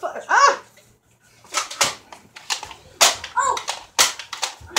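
A short burst of a child's voice, then a series of sharp plastic clacks from Nerf foam-dart blasters being fired and primed, about half a dozen spread over a few seconds.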